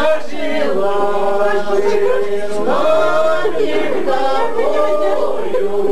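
A group of people singing a song together without accompaniment, in long held notes with a short break between phrases about halfway through.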